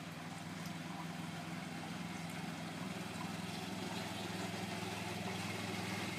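Small utility vehicle's engine running steadily as it drives across a lawn toward the listener, growing slightly louder as it nears.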